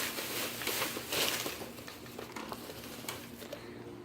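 Rustling and crinkling of bags and packaging being handled, with a run of small clicks and crackles, loudest about a second in.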